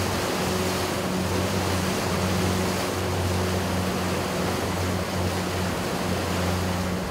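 Motorboat running fast over open sea: a steady engine hum under a constant rush of water and spray against the hull.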